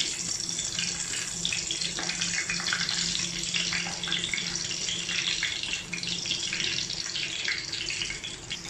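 Whole slit brinjals (eggplants) sizzling and crackling as they fry in hot oil in a kadai, a steady spitting hiss.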